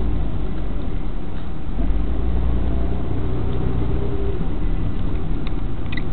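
Steady low rumble of a car's engine and road noise heard from inside the cabin while driving, with a few faint clicks near the end.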